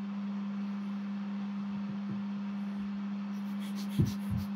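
The cooling fan of a Geekbes ZX-031S ultrasonic cleaner's electronics runs with a steady hum and an even airflow hiss. Only the heater is on; the ultrasonic transducers are off. A couple of soft low knocks come near the end.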